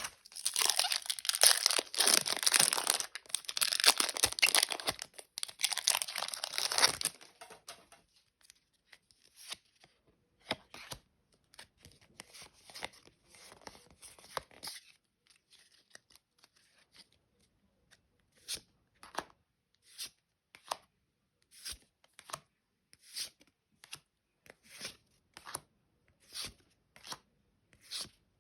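Foil wrapper of a Pokémon booster pack being torn open and crinkled for about seven seconds. Then cards slid off the stack one at a time, a run of short swishes at an even pace.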